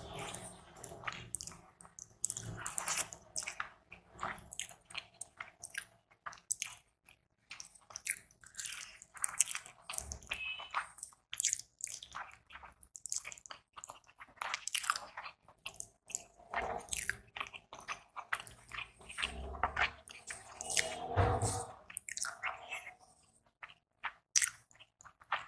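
Close-up eating sounds: wet chewing and smacking of rice with mutton curry gravy, with frequent short crunchy bites and mouth clicks.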